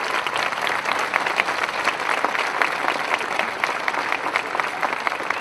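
A crowd applauding, many hands clapping at once.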